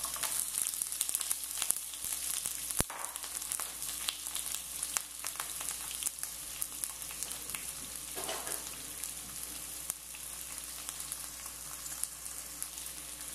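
Sliced onion rings sizzling in hot oil in a frying pan as they start to sauté: a steady hiss dotted with small crackling pops. A single sharp click stands out about three seconds in.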